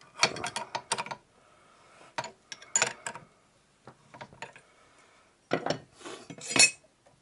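Metal clinks and rattles of a spanner on a lathe's ER32 collet nut as the collet is tightened, coming in several short bursts, the loudest near the end.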